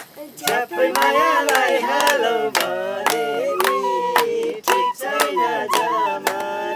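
A boy and men singing a folk song together, accompanied by a side-blown bamboo flute and hand clapping in a steady beat of about two claps a second.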